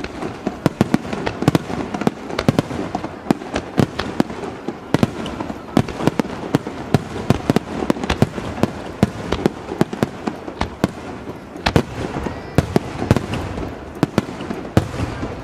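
Aerial fireworks shells bursting in rapid succession, several sharp bangs a second over a continuous rumble, with the explosions echoing back from the surrounding mountains.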